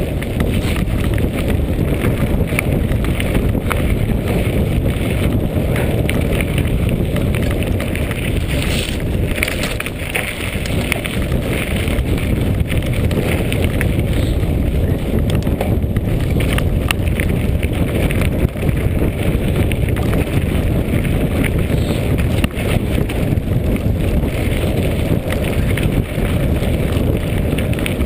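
Mountain bike riding fast over a gravel and dirt track: steady wind buffeting the microphone over the rumble of knobby tyres on loose stones, with frequent rattles and knocks from the bike over bumps.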